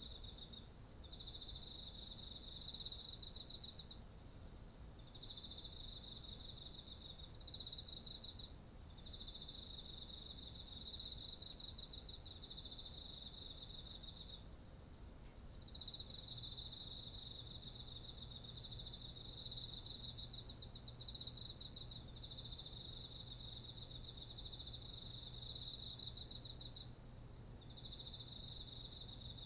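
Autumn insects calling, crickets among them: one continuous high-pitched trill, with pulsing trills of a few seconds each overlapping and pausing on top of it. A faint low steady hum joins about halfway through.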